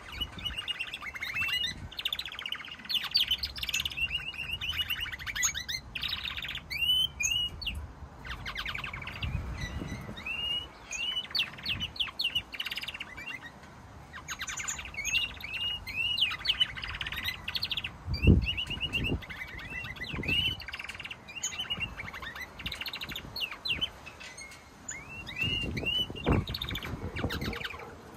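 Domestic canaries singing: continuous rapid trills and warbled phrases. A few low thumps are heard, the loudest about two-thirds of the way through.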